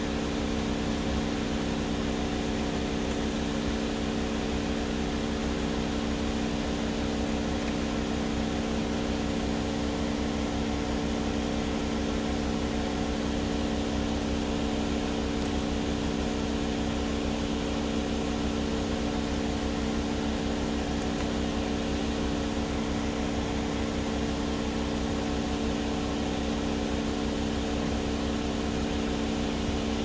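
Steady hum inside a running Toyota Camry's cabin, made of several even tones over a low rumble, with a few faint clicks as the fog light push-button switch is pressed.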